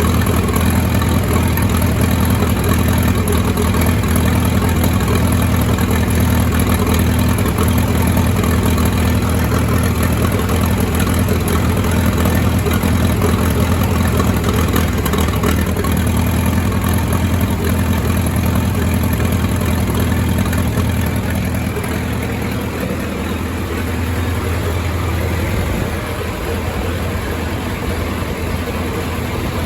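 1928 Farmall Regular's four-cylinder engine running steadily after being fired up, easing a little quieter about two-thirds of the way through.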